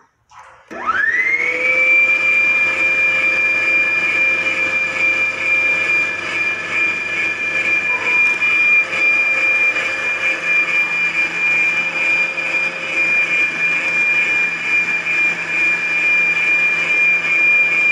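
Arno stand mixer switched on at its lowest speed, beating chocolate sponge cake batter. The motor spins up about a second in to a steady high whine that holds unchanged.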